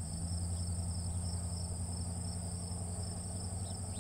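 Steady chorus of crickets: a continuous high trill in two unbroken bands, with a few faint short bird chirps near the end. Under it, a louder low steady hum comes in right at the start.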